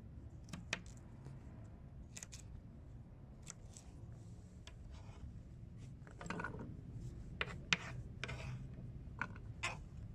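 Steady low hum of a Tormek T4 sharpening machine, with scattered metallic clicks and short scrapes as a blade is worked against it, busier in the second half.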